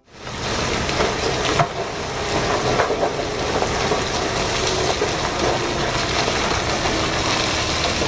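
Giant mining dump truck tipping its bed, a heavy load of rock and coal sliding and pouring off in a steady rushing rumble, with a few brief knocks of falling stones.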